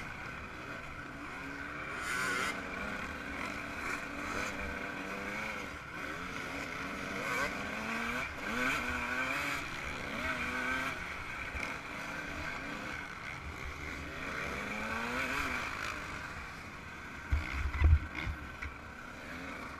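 Yamaha YZ125 two-stroke engine racing, its pitch repeatedly rising and falling as the throttle opens and closes through the gears, over a steady hiss. Near the end come a few loud low thumps.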